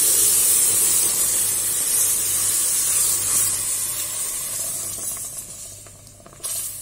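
Cold milk poured into a steel pot of hot butter-toasted flour, hissing and sizzling loudly as it hits the hot roux. The hiss fades gradually over about five seconds as the milk cools the pan.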